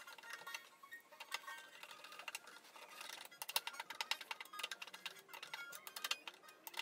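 Hand screwdriver driving a screw through a metal bracket into a particleboard panel: a run of quick, irregular clicks, densest in the middle.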